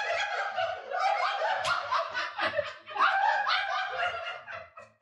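A small group of adults laughing and cackling over one another in a small room, fading off near the end.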